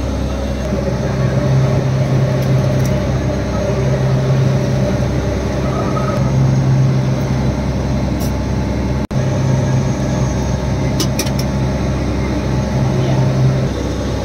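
A fishing boat's engine running steadily, a constant low drone with a hum.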